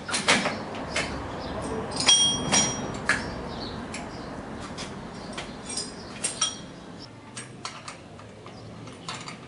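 Spanner clinking and clicking against the bolts and steel bearing housing of a homemade helicopter's tail-rotor assembly as the nuts are worked. A cluster of sharp clinks comes in the first three seconds, a couple of them ringing briefly about two seconds in, then sparser clicks.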